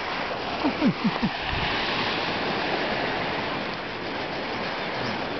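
Steady rushing noise of surf and wind on the beach, with three short falling cries in quick succession about a second in.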